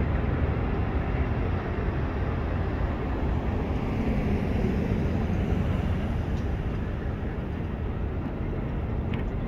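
Steady low rumble of vehicle noise, without distinct knocks or horn tones.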